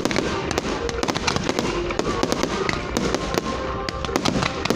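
Fireworks going off in a dense, continuous series of sharp bangs and crackles, many each second.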